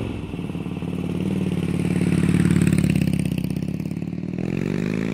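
Motorcycle engine running, swelling in loudness to a peak about halfway through, then easing, with its pitch starting to rise near the end as it is revved.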